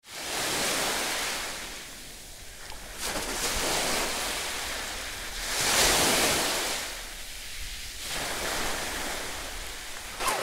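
Small sea waves washing onto a beach, the noise swelling and fading in four surges about two and a half seconds apart, the loudest about six seconds in.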